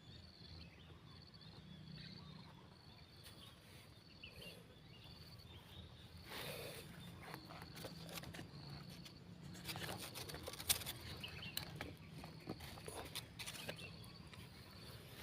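Faint outdoor ambience with a steady thin high tone. From about halfway in, scattered rustles and clicks become more frequent.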